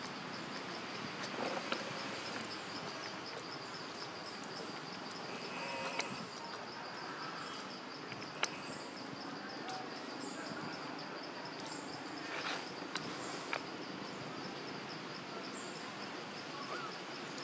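Insects trilling: a steady high note pulsing rapidly without a break, over an even outdoor hiss. A few sharp clicks and light rustles of dry leaves and plastic come through as a baby monkey handles the leaf litter and a bowl.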